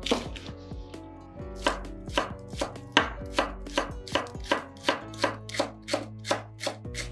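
Chef's knife chopping green onions on a wooden cutting board, each stroke a sharp knock of the blade through the stalks onto the board. There is one cut near the start, then a steady run of about two or three chops a second from about a second and a half in.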